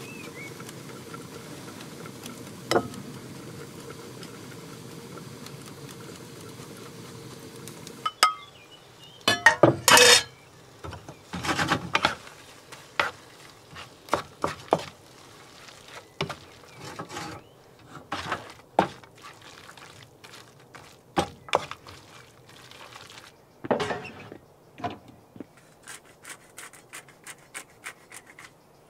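Cooking on a camping gas stove. A steady burner hiss cuts off with a click about eight seconds in. Then a metal frying pan and utensils clatter loudly as pasta is tossed and stirred, followed by scattered clinks and knocks of cutlery, dishes and pans.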